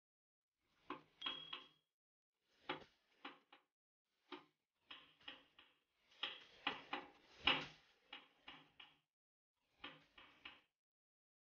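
Lump hammer striking a small steel plate held against a steel bench vise: short groups of sharp metallic knocks, about twenty strikes in all, one early strike ringing briefly.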